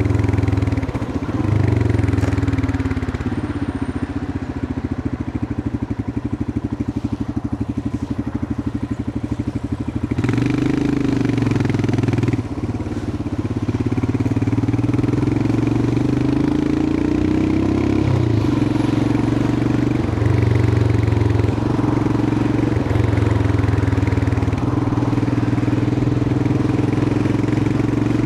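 Royal Enfield Himalayan 411's air-cooled single-cylinder engine running under way, its speed rising and falling through the lanes. For several seconds early on it runs slower with a distinct thump of separate firing strokes, then picks up about ten seconds in, with a brief dip soon after.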